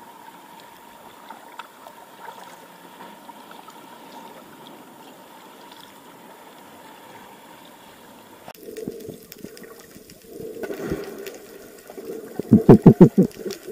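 Sea water lapping and trickling at the surface just beside the camera. About eight seconds in the sound turns muffled as the camera goes underwater, and near the end a person plunging in sets off a loud rush of throbbing, bubbling underwater noise.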